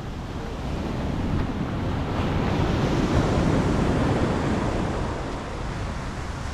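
Wind buffeting a GoPro microphone while riding an electric scooter, a steady low rumble that swells for a few seconds in the middle.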